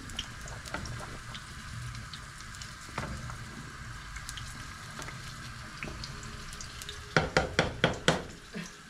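Steady sizzle of food cooking on a gas stove while a wooden spoon stirs a pot of soup. Near the end, about six quick sharp knocks of the spoon against the metal pot.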